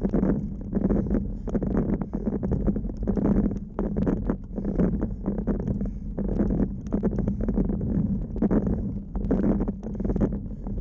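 Road bike being ridden on tarmac, heard from a camera mounted on the bike: a steady low hum with rhythmic pulses about twice a second.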